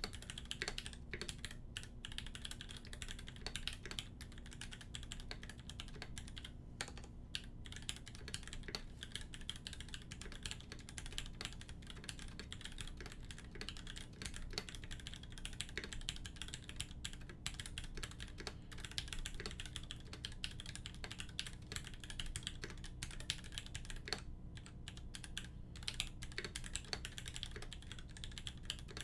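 Continuous typing on a custom mechanical keyboard: a polycarbonate Singa with C3 Tangerine linear switches lubed with Krytox 105, a 1.5 mm brass plate and GMK 9009 R2 keycaps. The keystrokes come in a fast, steady run, with a brief pause about three quarters of the way through.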